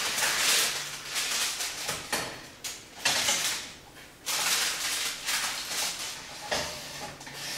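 Metal baking tray lined with baking paper being slid onto the middle shelf of an oven, scraping and rustling in several uneven bursts.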